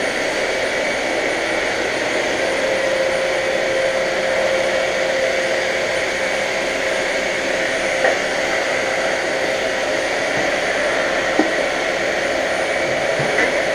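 Vacuum cleaner running steadily with a constant whine, with two faint brief clicks partway through.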